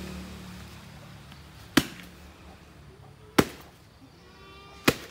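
Three sharp knocks about a second and a half apart: a coconut, stuck on the end of a hoe, is struck down hard to split it open.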